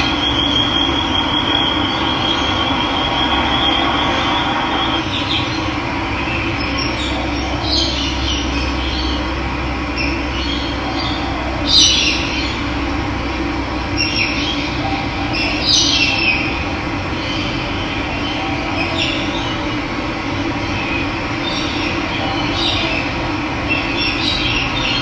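Running water flowing steadily, with birds giving short chirps over it through the middle, the loudest about twelve seconds in. A steady high trill sounds for the first few seconds.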